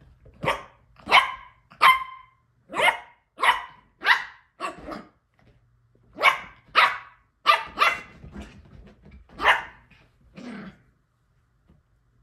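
Small dog barking in play, about a dozen short yaps in irregular bunches, the last one lower and weaker.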